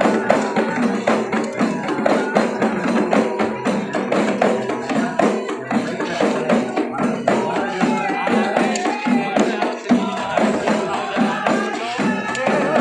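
Terbangan frame drums of a dikir group beaten in a fast, steady rhythm. From about halfway, voices sing over the drumming.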